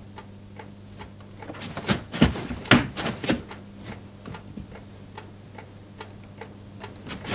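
A scattering of irregular light clicks and knocks, a few of them louder, over a steady low hum.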